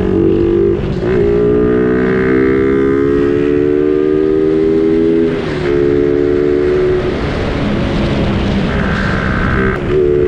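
Suzuki Raider 150 Fi's single-cylinder four-stroke engine running under way at road speed. Its note rises slowly and dips briefly a few times.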